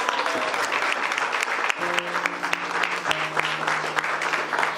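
Guests applauding with many scattered claps, while instrumental music with long held notes comes in about two seconds in.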